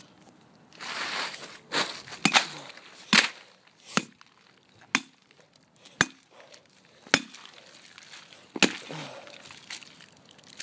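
Repeated sharp blows smashing a pumpkin, about eight strikes coming roughly once a second, after a brief rustle near the start.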